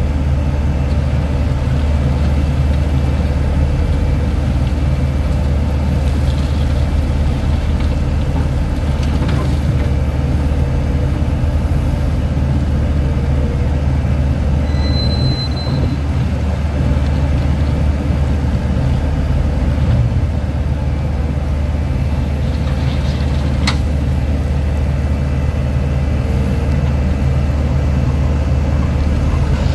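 Steady low rumble of heavy diesel vehicle engines running, with a brief high whistle about halfway through and a sharp tick near the end.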